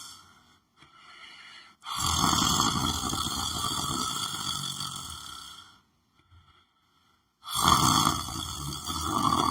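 A sleeping person snoring: one long snore of about four seconds beginning about two seconds in, a pause, then another beginning near the end.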